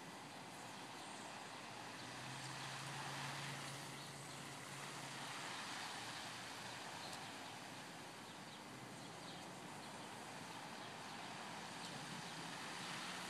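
Steady hiss of water spraying from an oscillating lawn sprinkler and falling on the grass and garden plants, with a faint low hum from about two to five seconds in and again near the end.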